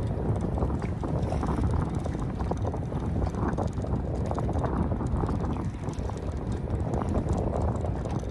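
Wind buffeting the microphone aboard a small fishing boat, a steady rumbling noise broken by many short knocks.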